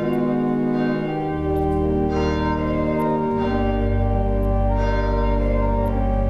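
Church organ playing slow, sustained chords. Deep bass pedal notes come in about a second in and step lower about three and a half seconds in.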